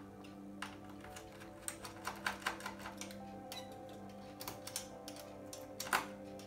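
Screwdriver working the last screw out of a metal chassis panel: a run of small irregular clicks and taps, one louder click near the end, over soft background music with steady held notes.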